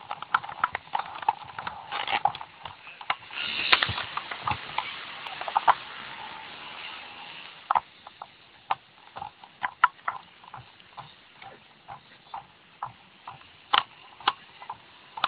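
Irregular knocks, taps and rubbing of a phone being handled against its microphone, with a stretch of rustling hiss from about three to seven seconds in. After that the knocks become sparse and scattered. No engine can be heard.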